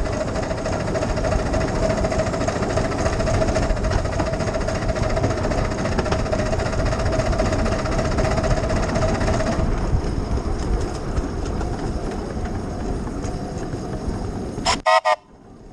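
7¼ inch gauge miniature steam locomotive running along its track, heard from the engine itself: a steady, loud running noise of the train on the rails. Near the end, a few very short toots of the whistle in quick succession.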